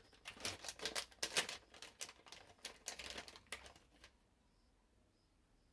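Hands handling a small electronic part close to the microphone: irregular clicks and rustles that stop about four seconds in.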